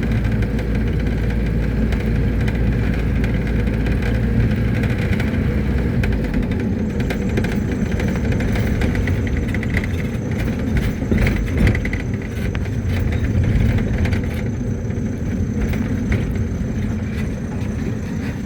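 Mercedes-Benz T1 minibus under way, heard from inside the cabin: steady engine and road rumble with scattered knocks and rattles. The deep low rumble eases about six seconds in, and a thin steady high whine comes in soon after.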